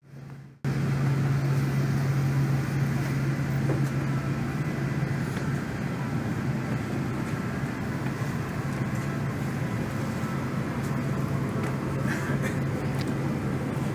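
Airbus A380 cabin noise on the ground after landing: a steady low hum over a steady rush of air, starting less than a second in after a short dropout.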